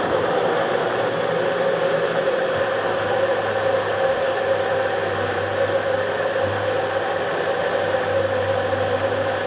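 Magic Bullet personal blender running steadily, its motor whirring loudly while it blends a thick smoothie of fruit, yogurt and seeds.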